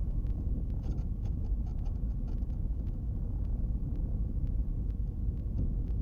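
Cessna 310's twin piston engines running at low power while taxiing, heard as a steady low rumble inside the cabin, with scattered faint clicks.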